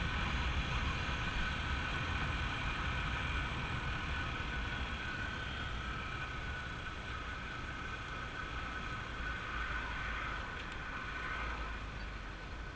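A motor vehicle running steadily, a low rumble under a few steady whining tones, easing off slightly near the end.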